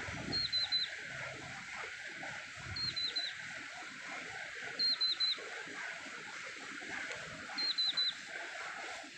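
A bird calling again and again, each call a quick run of three short high chirps, repeated every two to three seconds. Under it run a steady hiss and an uneven low rumble.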